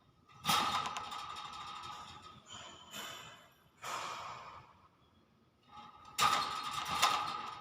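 Hill myna making harsh, breathy rasping noises in several bursts, two longer ones near the start and the end with shorter ones between.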